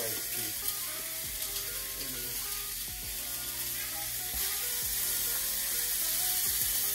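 Raw ribeye steaks sizzling as they are laid into a pan of avocado oil heated to searing temperature, with the crinkle of the steaks' plastic packaging being handled. The sizzle grows louder about four seconds in.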